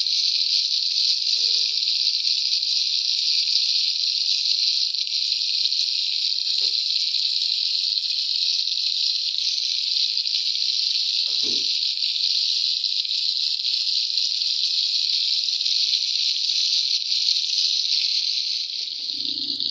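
Chicken shashlik skewers sizzling steadily in a shallow layer of hot oil in a frying pan, with a faint knock a little past halfway.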